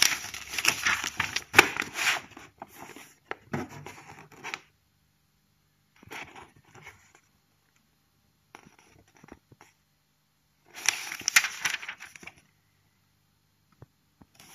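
Paper pages of an instruction manual being turned and handled, rustling in bursts: a long bout at the start, shorter ones about 6 and 9 seconds in, and another around 11 seconds.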